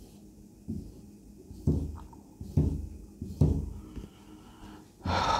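A marker ruling the lines of a grid on a whiteboard: about five dull knocks against the board as the strokes are drawn, then a short hiss near the end.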